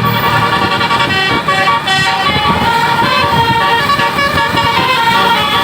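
A bus's basuri telolet horn playing a tune: several horn tones sound together and step from note to note without pause.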